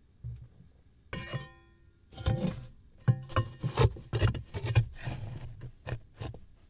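Metal ash shovel scooping ash from a brick firebox. There is a ringing clank about a second in, then a run of scrapes and knocks as the blade drags across the brick floor.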